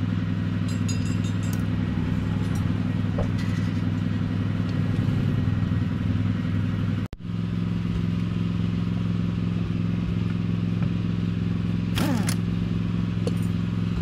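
Motorcycle engine idling steadily, with a few light metallic clinks near the start.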